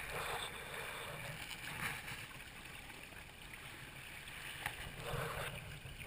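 Water rushing and splashing along the hull of a Hobie Tandem Island sailing kayak under way, heard through a GoPro's waterproof housing, with a couple of brief louder swishes.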